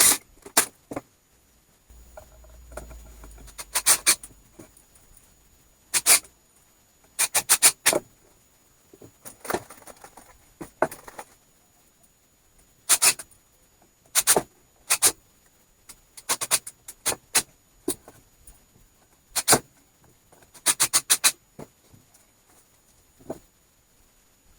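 Sharp knocks and taps in short quick clusters of two to five, with pauses between: workshop work on wood, such as hammering or knocking parts together. A faint low hum sounds for a few seconds near the start.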